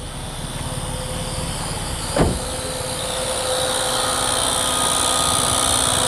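Maruti Swift petrol engine running with the AC switched on, the AC compressor making a continuous rattling 'kid-kid-kid' / 'trr' noise. The mechanic puts it down to an internal mechanical fault in the compressor, since the noise is gone with the AC off. A single thump about two seconds in.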